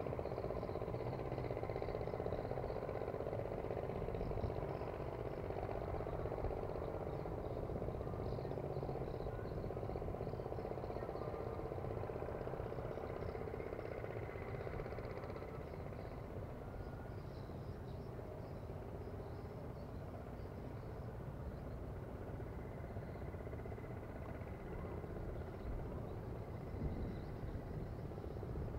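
Rovan Baja Q 36cc two-stroke gasoline engine running steadily at idle while being broken in.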